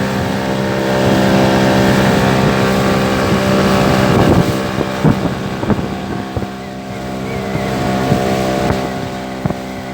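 Small fishing boat's motor running steadily under way on rough sea, with wind on the microphone. From about four seconds in, short knocks and splashes of waves hit the hull.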